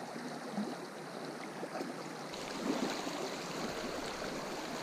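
Small rocky brook rushing over stones, a steady rush of water that grows a little louder about two seconds in.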